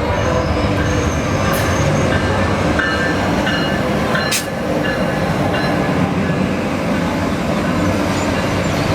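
A train passing at close range: a steady loud rumble of wheels on rail with faint high squealing tones, and one sharp knock about four seconds in.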